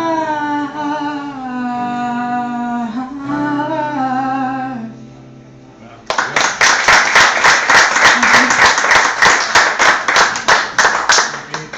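A singer holds the last note of a song over a sustained accompanying chord, and it dies away about five seconds in. After a short pause, an audience applauds for about five seconds.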